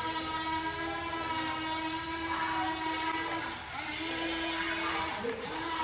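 Small electric motors of a Huina radio-controlled excavator whining steadily, with a brief dip in pitch and level a little after halfway.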